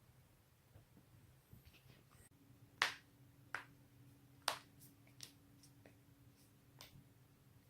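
Joints being cracked by twisting: a series of sharp, dry pops, about five in all, the three loudest coming between about three and four and a half seconds in, over a faint steady hum.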